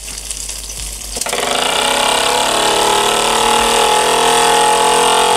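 Microcosm M88 miniature brass steam engine starting under its own steam after its flywheel is spun by hand, a rapid mechanical beat that climbs in pitch for a couple of seconds as it speeds up, then holds at high revs. The boiler pressure is now high enough to keep it running.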